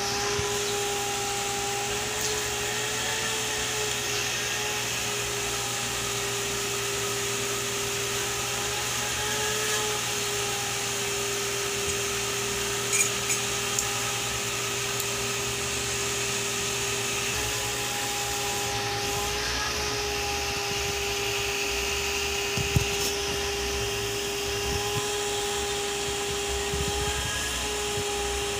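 A steady motor hum with a high whine that wavers slightly in pitch, running without a break. A few light clicks come near the middle, and a single sharp tap about three-quarters of the way through.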